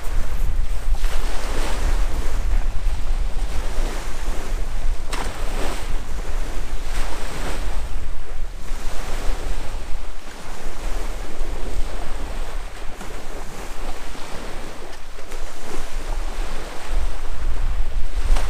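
Sea waves washing onto the shore in swells a few seconds apart, with wind buffeting the microphone in a steady low rumble.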